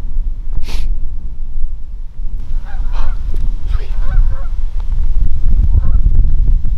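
Flock of geese honking in flight, the calls starting a couple of seconds in and coming more often towards the end, over a steady low rumble of wind on the microphone.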